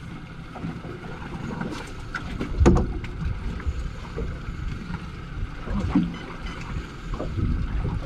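Steady low rumble of a fishing boat at sea, with wind noise, broken by a sharp loud knock a little under three seconds in and a softer thump about six seconds in.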